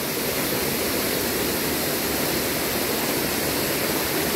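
Steady rush of a forest stream flowing over rocks.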